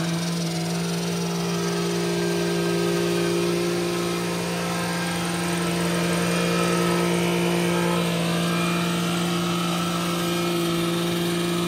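Ford Escape SUV's engine held at high revs in a burnout, its spinning tires smoking on a plywood board. The engine note holds one steady pitch.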